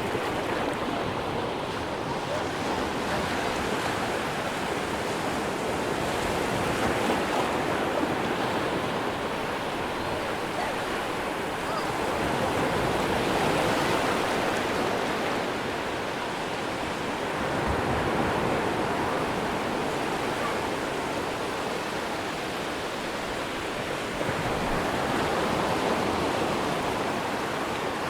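Atlantic surf breaking on a sandy beach: a steady wash of waves that swells and eases every few seconds.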